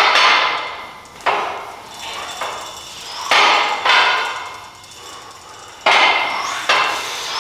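Cable lat-pulldown machine clanking through reps: metal knocks that ring and die away, in pairs about every two and a half seconds as the weight is pulled and let back.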